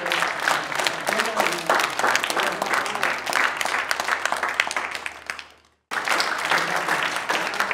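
Audience applauding, a crowd of clapping hands with a few voices mixed in. The applause dies away about five seconds in, breaks off for a moment, then starts up again.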